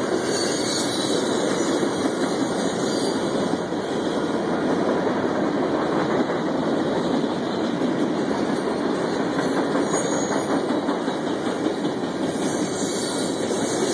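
Mixed freight cars (boxcars, an autorack and lumber-loaded centerbeam flatcars) rolling past, making a steady rolling noise of steel wheels on the rails.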